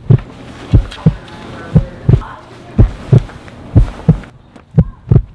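Heartbeat sound effect: pairs of deep thumps, lub-dub, repeating about once a second, over a faint hiss that stops about four seconds in.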